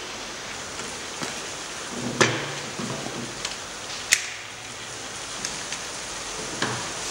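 A few sharp clicks and knocks of handling, the loudest with a short dull thud, as a spirit level is set against a plastic pipe held in a clamping fixture, over a steady hiss.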